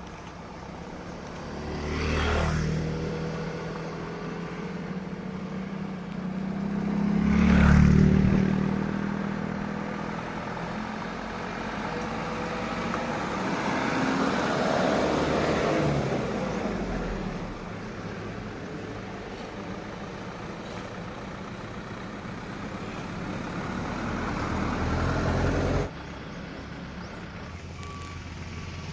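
Vehicles, trucks among them, driving past one after another on a rough road, engines running; two loud pass-bys come about two and eight seconds in, and the sound drops suddenly near the end.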